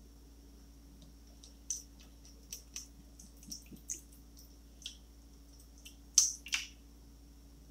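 Water poured in a thin stream from a glass carafe into a plastic tray, heard as a scattered run of small splashes and ticks, the loudest a pair near the end.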